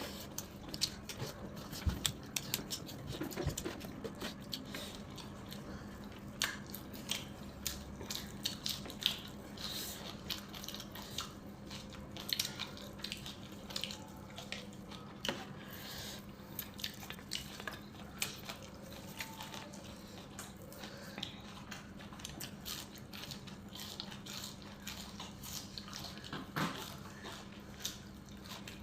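Close-miked eating: wet chewing and small mouth clicks with occasional light knocks of dishes, over a steady low hum.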